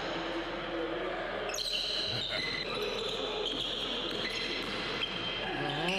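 Indoor pickup basketball game: a ball bouncing and sneakers squeaking on the hardwood court, with players' voices in the gym. The sound changes abruptly about one and a half seconds in.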